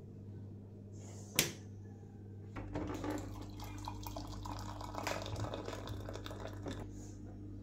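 Water dispenser: a sharp click about a second in, then water pouring from its tap into a glass for about four seconds, over a steady low hum.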